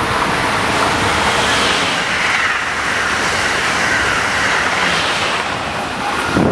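Amtrak Acela Express high-speed electric trainset passing at speed: a loud, steady rushing noise of wheels on rail and air, strongest midway through and easing near the end as the train clears.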